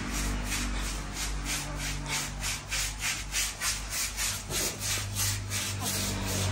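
Rubber grooming brush scrubbing back and forth over a wet goat's coat, a steady rhythm of about four rasping strokes a second.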